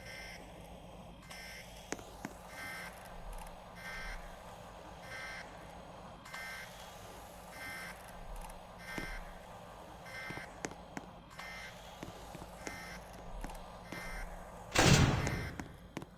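A short electronic beep repeating about once a second over a low steady hum, then a loud, rough burst about a second long near the end.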